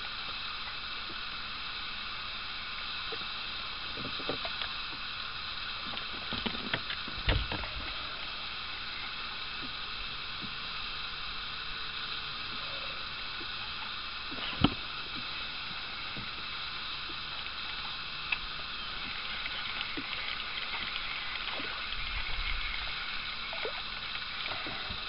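Steady outdoor hiss with scattered clicks and a few sharp knocks from fishing tackle and the boat being handled while a lure is cast and worked. The loudest knock comes about fifteen seconds in, and another about seven seconds in.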